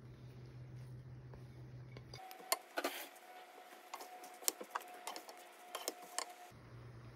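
Wooden spatula tossing noodles in a stainless-steel wok, giving a series of sharp clicks and knocks against the pan over several seconds. A low steady hum runs under the first two seconds.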